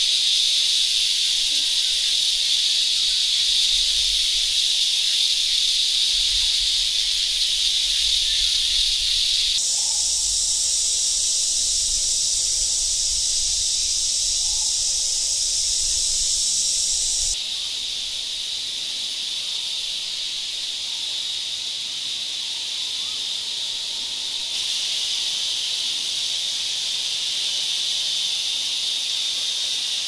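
Forest insects droning steadily in a continuous high-pitched hiss. The tone shifts abruptly three times. A low rumble sits under the first half.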